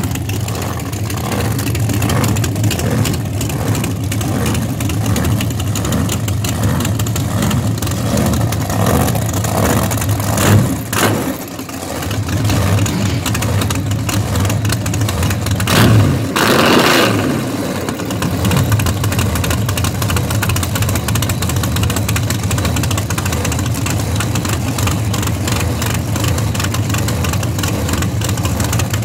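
Drag-race '69 Camaro's V8 idling steadily, blipped briefly about ten seconds in and revved harder, pitch rising and falling, about sixteen seconds in.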